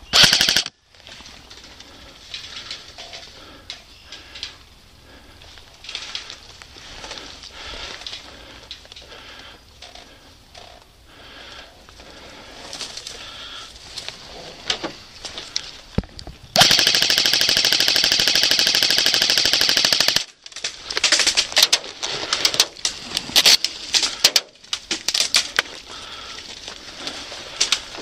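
Airsoft guns firing in a skirmish: a short full-auto burst at the start, scattered single shots, then one long full-auto burst of about three and a half seconds past the middle, followed by rapid short bursts and single cracks.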